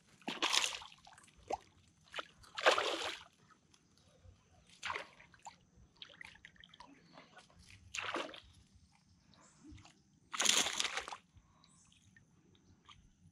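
Kayak paddle strokes sloshing and splashing in calm river water, five separate strokes a couple of seconds apart, the last the longest.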